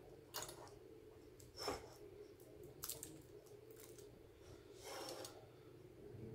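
Faint scattered clicks and rustles of fan wires and small plastic connectors being handled on a graphics card, a handful in all, over a low steady hum.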